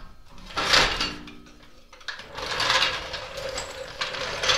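Hydraulic floor jack being worked by its long handle under the car, giving mechanical rattles in three bursts with a brief squeak between the first two.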